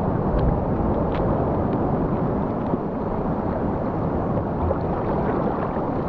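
Steady low rumbling rush of sea water moving around the camera at the surface, with wind buffeting the microphone and a few faint clicks.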